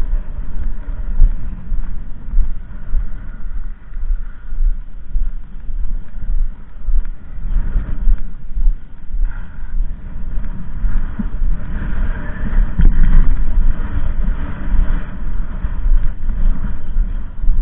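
Wind buffeting the microphone: a loud, gusty low rumble that swells and drops every second or so.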